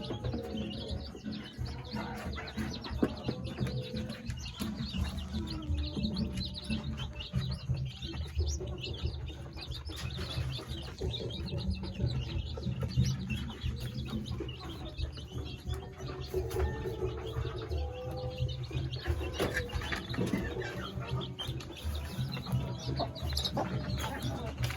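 Chickens chirping and clucking, with many short high peeps and some longer mid-pitched calls throughout, over a steady low rumble.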